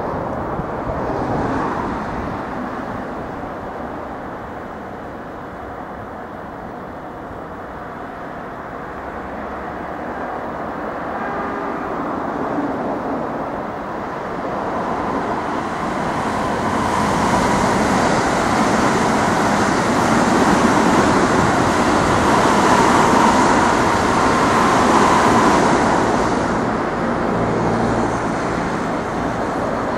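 Electric trains running past on the tracks: a steady rumble of steel wheels on rail. It grows from about halfway through and is loudest for several seconds, with a high hiss, as a train passes close, then eases off near the end.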